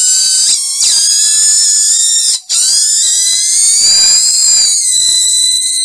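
Two walkie-talkie kit boards oscillating, giving loud, shrill whistling tones that slowly wander in pitch. The tones cut out briefly about half a second in and again about two and a half seconds in, then settle into a steady tone near the end.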